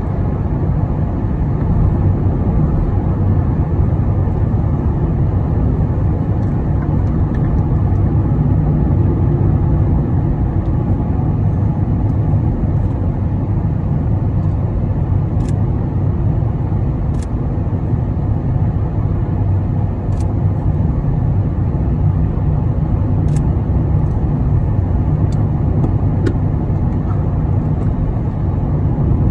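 Steady low rumble of road and engine noise heard inside a moving car's cabin, with a few faint ticks in the second half.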